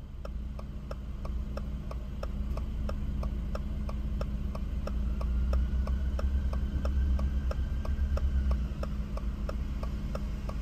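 A car's turn-signal indicator ticking in an even, steady rhythm over the low, steady hum of the idling engine.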